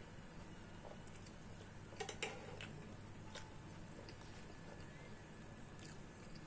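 A metal spatula and fork set down on a frying pan: a short metallic clatter of several clicks about two seconds in, then a few faint single clicks, over a low steady hum.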